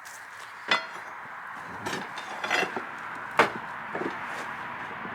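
A handful of sharp, irregular knocks and clanks, wood and metal struck together, some with a brief metallic ring, as a rusted-in part of an old sawmill carriage is worked loose from its bolt. The loudest knock comes about three and a half seconds in.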